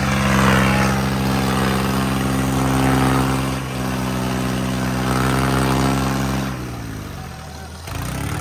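Tractor diesel engines straining at full load in a chained tug-of-war, hard enough to lift the front wheels. The engine note holds steady, then sags about six and a half seconds in as the engine lugs down, and picks back up near the end.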